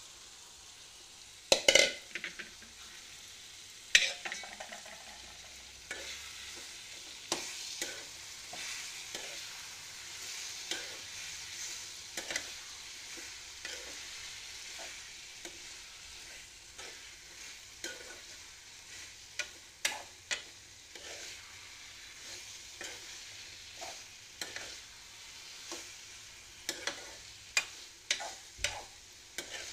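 Marinated chicken sizzling as it fries in an onion-tomato masala in a kadai, with a steady hiss. A spoon stirring it scrapes and knocks against the pan again and again, hardest about two seconds in and again near the end.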